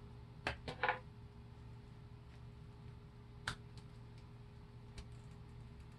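Hard plastic action-figure parts clicking as they are handled and fitted together: three quick clicks within the first second, a sharper one about three and a half seconds in, and a faint one near the end.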